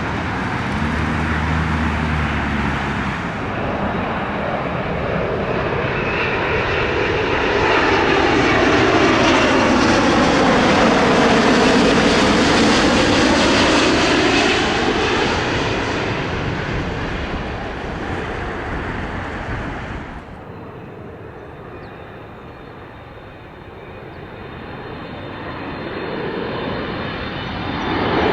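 Jet airliner engines passing close by: the noise swells to a peak with a sweeping, wavering tone as the aircraft goes past, then fades. It drops off suddenly about twenty seconds in, and another aircraft's engine noise builds near the end.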